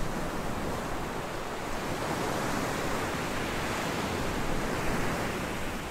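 Steady rush of ocean surf, swelling a little in the middle and easing off near the end.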